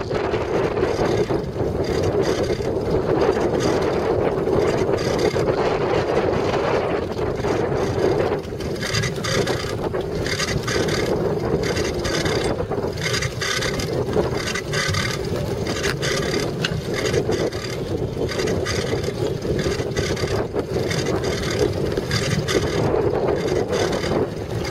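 Ride noise from a bicycle-mounted camera rolling over hard, dusty ground: wind buffeting the microphone, with a steady rumble and rattling clicks. For much of the middle stretch a brighter metallic rattle with faint ringing joins in.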